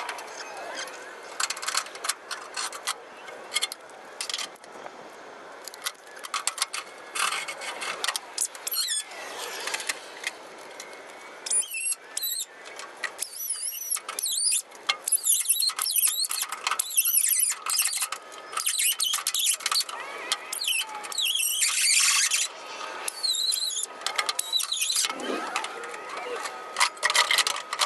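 A power tool cutting through the sheet steel of a truck's rusted rocker panel and cab corner, in stop-start passes, with high wavering metal squeals and screeches.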